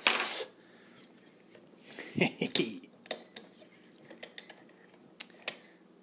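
Small metal clicks and clinks as a just-picked padlock is handled and taken out of a bench vise, with a few separate sharp taps in the second half.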